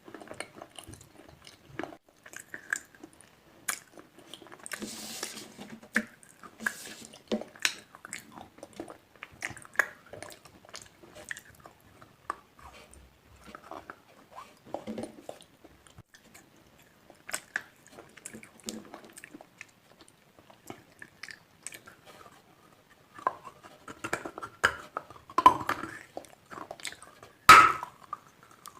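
A person biting and chewing slate pencils: irregular sharp crunches and cracks, with one loudest snap near the end.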